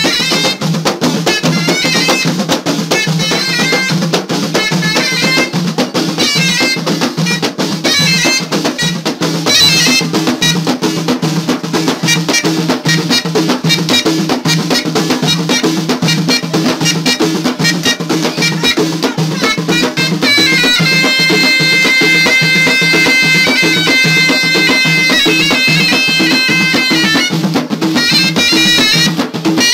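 Moroccan ghaita, a double-reed shawm, playing a fast folk melody over frame drums beaten in a dense, driving rhythm. For several seconds in the second half the ghaita holds one long steady note before the melody runs on.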